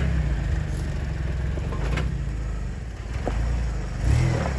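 Jeep Wrangler engine running at low revs, pulling the Jeep slowly up a loose-sand slope. A few brief knocks or clatters are heard, and the engine note swells briefly near the end.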